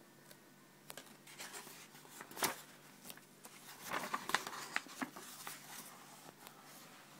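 Book pages being turned by hand: paper rustling and crinkling in a run of short scrapes and snaps, loudest about two and a half seconds in and again around four seconds in.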